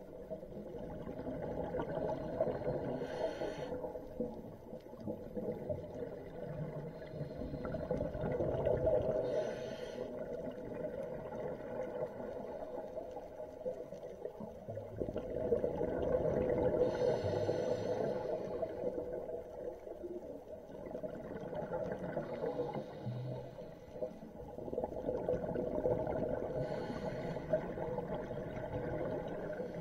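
Scuba diver's breathing through a regulator, heard underwater: slow breaths with a low rumbling rush, and a hiss of exhaled bubbles four times, every seven to ten seconds.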